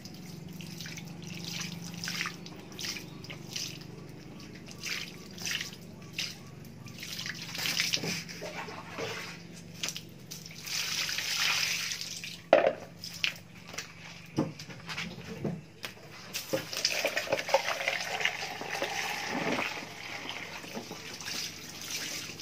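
Water poured from a plastic dipper over a muddy sponge filter pad and splashing onto a concrete floor, with the sponge squeezed and wrung so water sprays off it: the filter medium being rinsed clean of mud. Irregular splashes and drips, two longer spells of pouring and spraying, and one sharp knock about halfway through.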